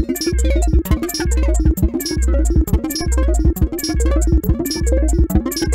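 Electronic synthesizer music from a groovebox: a steady beat with a deep bass note repeating about once a second, sharp percussive hits and synth tones sliding up and down in pitch.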